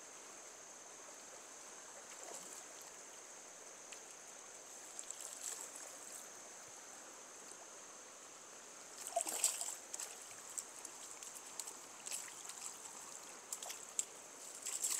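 Steady hiss of flowing river water, with a few short, louder sounds over it, the loudest about nine seconds in.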